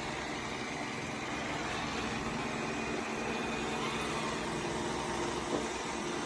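Steady motor-and-fan whir of a robot vacuum running, an even rushing noise with a faint hum.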